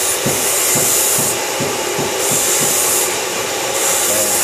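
A metal exhaust baffle tube being cut to length: a loud, steady hissing cut with a faint rough pulse about three times a second underneath.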